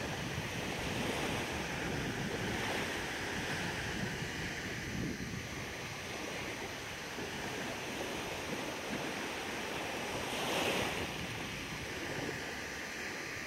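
Small waves washing up onto a sandy beach and drawing back, in slow swells, with some wind on the microphone; one wash comes louder about ten seconds in.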